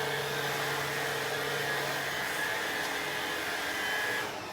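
Oraimo CyberVac 180 W cordless vacuum cleaner running with a steady whir, cut off near the end.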